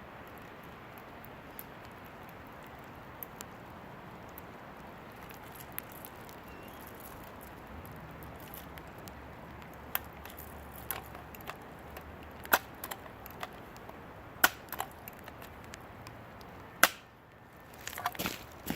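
Steady outdoor hiss with several sharp clicks and snaps in the second half, then a short burst of rustling near the end: small handling and movement sounds.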